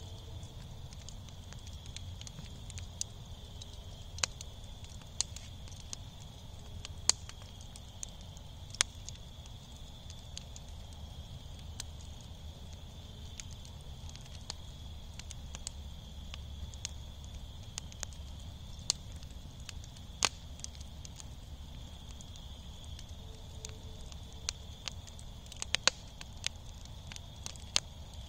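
A bed of glowing wood embers crackling, with scattered sharp pops and snaps at irregular intervals over a steady low hiss, and a quick cluster of snaps near the end.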